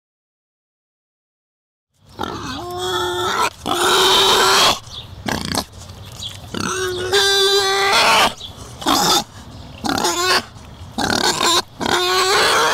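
Wild boar squealing and grunting: a rapid series of harsh calls, some pitched and some rough, starting about two seconds in.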